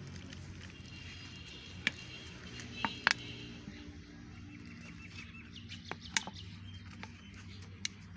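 Faint bird chirps over a low steady hum, with a few sharp clicks and taps from a plastic oil bottle being picked up, poured from and set down.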